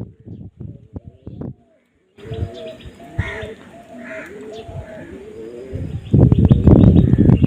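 Dove cooing: a series of soft, low, bending coos, with light knocks before them. From about six seconds in a loud rough crackling rumble takes over and drowns the coos.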